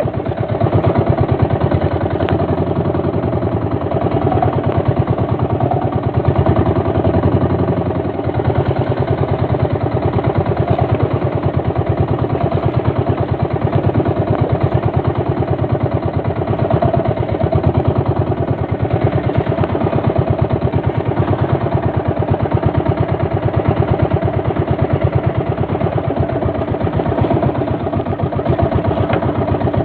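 Fishing boat's engine running steadily at an even speed, a fast regular chugging with no change in pace.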